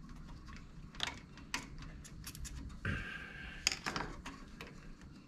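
Small clicks and rattles of fingers working wire connectors off a treadmill's circuit breaker, a handful of sharp ticks spread over the few seconds.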